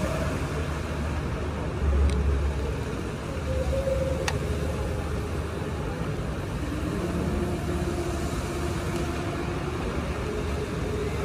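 Dubai Fountain water jets spraying over the lake: a steady rushing noise with a low rumble, swelling louder about two seconds in.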